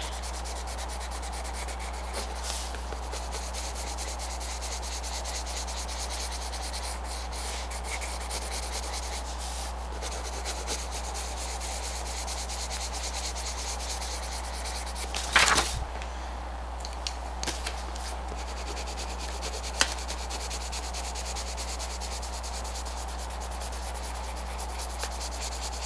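Colored pencil shading on paper: a steady soft scratching as the lead is rubbed back and forth to blend colors, with one short, louder sound about fifteen seconds in. A steady low hum runs underneath.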